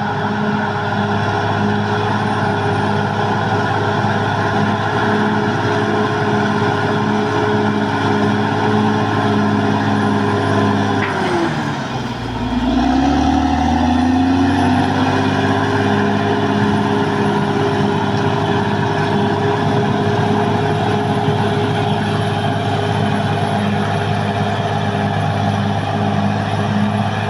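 Caterpillar D6R XL bulldozer's diesel engine running steadily at working revs. About eleven seconds in, its pitch drops sharply, then climbs back up over the next few seconds.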